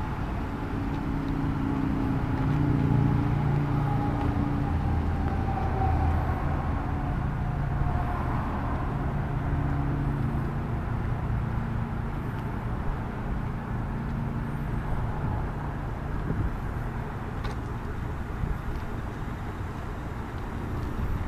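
2008 Chevrolet Avalanche LTZ engine running, its note shifting for the first several seconds and then settling into a steady hum.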